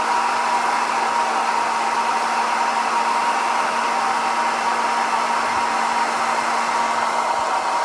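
Hand-held blow dryer running steadily on its low heat setting, a constant airy rush with a steady motor whine.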